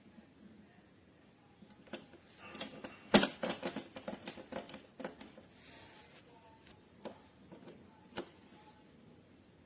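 Irregular clicks and knocks of an object being handled, coming thickly and loudest about three seconds in, then a few single clicks later.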